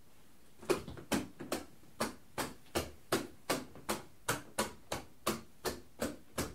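Rocker light switches, the two-way and intermediate (cross) switches of a cross-circuit wiring board, clicked one after another. It is a quick, even series of sharp clicks, about three a second, starting just under a second in.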